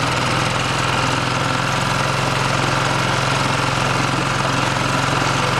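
Boat engine running steadily: a low hum with a rapid, even beat under a constant hiss.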